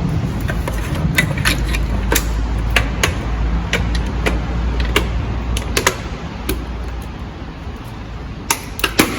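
Irregular plastic clicks and taps of a carbon-fibre-style mirror cover being pressed onto a car's wing mirror housing, over a low rumble. Two sharper clicks come near the end as the cover's clips snap into place.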